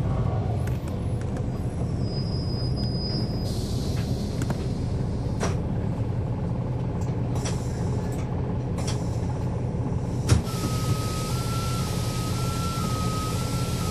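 Interior of a 2011 NABI 416 transit bus with a Cummins ISL9 diesel engine, running with a steady low rumble and scattered rattles and clicks. About ten seconds in there is a single sharp knock, followed by a steady high tone that steps slightly up and down between two pitches.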